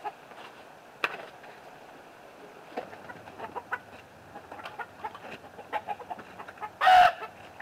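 Backyard chickens clucking in short, scattered calls, with a sharp click about a second in and one loud, brief sound near the end.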